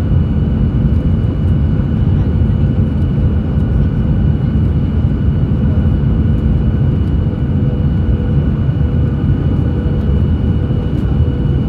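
Steady cabin noise inside an airliner on approach to land: a low, even rumble of engines and airflow with a few faint steady tones above it.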